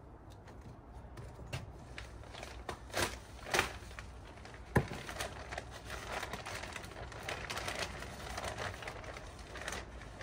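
Irregular scraping and crunching of soil and stones as a fence-post hole is worked by hand and spade, with a sharp knock about five seconds in.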